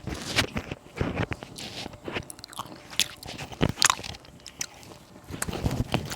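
Close-miked eating: irregular biting, chewing and wet mouth clicks, with a few crisp crunches.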